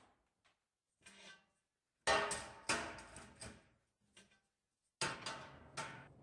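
Steel tubing being set down and shifted in a steel welding jig on a metal fabrication table: a run of metallic clanks and knocks with short ringing, loudest just after two seconds in and again about five seconds in.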